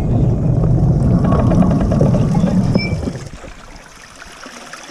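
Low rumble of wind and road noise while riding a bicycle through a tunnel, dropping off sharply about three seconds in to a quieter hiss.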